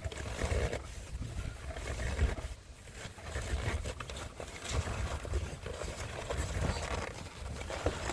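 Low, uneven rumbling and rustling handling noise with scattered light clicks as the gear stick knob is turned round and round on its threaded shaft to unscrew it.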